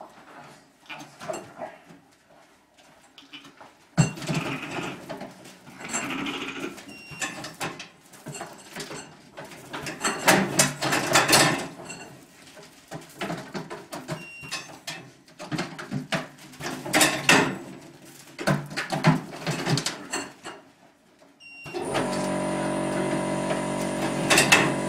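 Metal clanks and knocks of a sheep weighing crate and sorting gate as lambs are pushed through, with lambs bleating now and then. Music comes in near the end.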